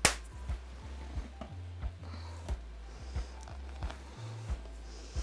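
Background music with a steady beat and a low bass line. A single sharp knock comes right at the start.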